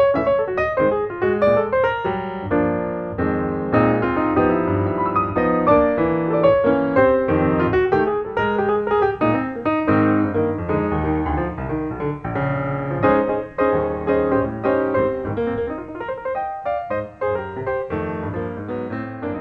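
Background music played on piano: a run of notes that never stops.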